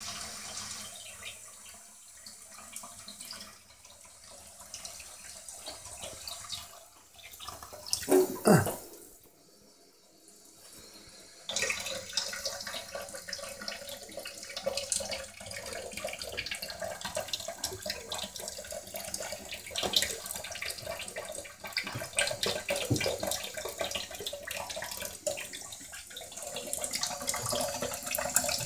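Water running from a tap. It drops away for a few seconds just after a loud short sound with a falling pitch about eight seconds in, then starts again suddenly.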